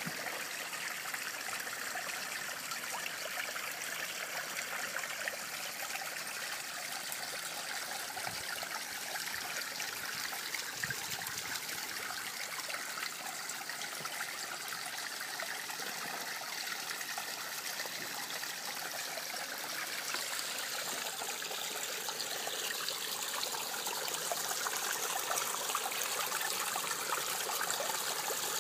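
Water running steadily into a garden fish pond, a constant trickling splash that grows a little louder in the last few seconds.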